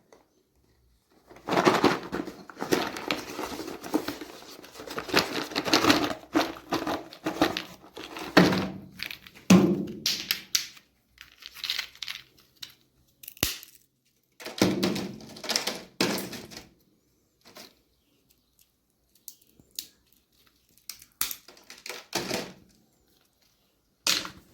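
Walnuts crunching and cracking in a meat grinder: two long spells of dense crackling, the first lasting about eight seconds and the second about two, followed by scattered single cracks and clicks.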